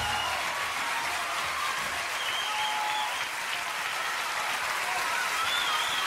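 Audience applauding steadily after a choir's song has ended.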